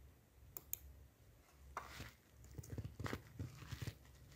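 Faint computer mouse clicks, two in quick succession about half a second in, followed by soft irregular rustling.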